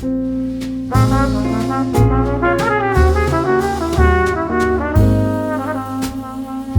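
Background music led by brass instruments, with a steady beat about once a second and a melody moving in short notes.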